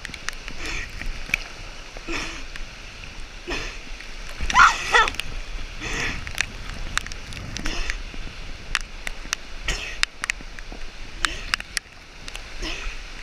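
Shallow water rushing and splashing over a rock slab close to the microphone, with many sharp clicks of water hitting the camera. A person's voice calls out briefly about four and a half seconds in, the loudest moment.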